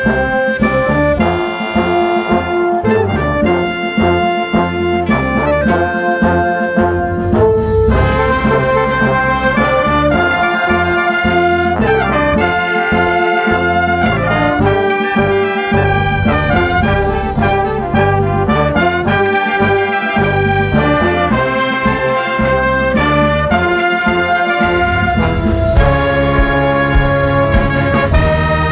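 Live band music led by brass, trumpets and trombones, playing a melody in held notes over a steady low beat.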